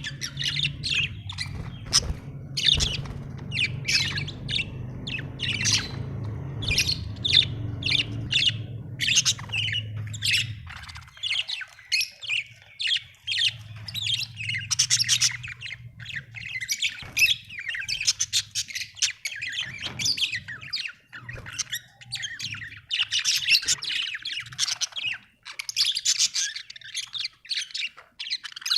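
Budgerigars chirping and chattering in a rapid, busy stream of short calls. A low steady hum runs under them for about the first ten seconds, then fades.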